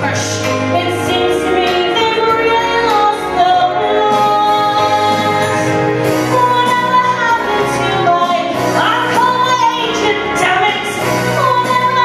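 A woman singing a show tune with long held notes over a musical accompaniment.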